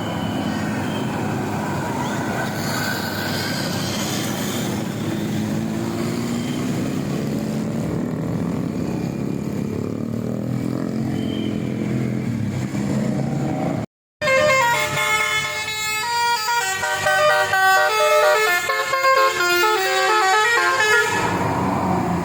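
Heavy engine and road noise as a bus goes by, with some slow rises and falls in pitch. After a brief dropout about fourteen seconds in, a multi-tone 'basuri' telolet bus horn plays a quick stepping melody of many short notes for about seven seconds.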